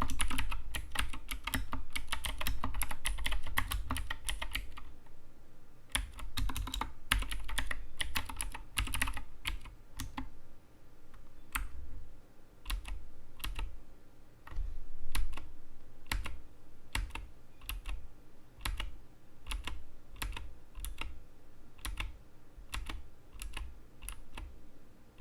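Typing on an Anne Pro 2 mechanical keyboard: fast, dense key clicks for the first few seconds, a short pause, another quick run, then slower single keystrokes about one or two a second.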